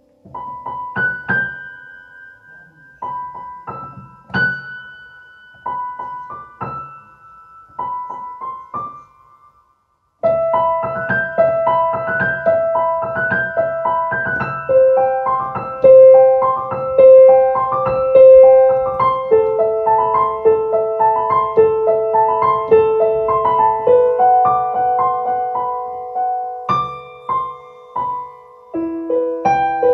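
Slow solo piano piece played on a digital piano. For the first ten seconds it comes in short phrases with pauses between them; then, after a brief silence, a continuous melody runs over held lower notes.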